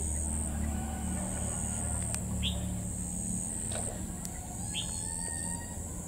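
Insects keep up a steady high buzzing trill in long stretches with short breaks. A few short, sharp bird chirps come about two seconds apart over a continuous low drone.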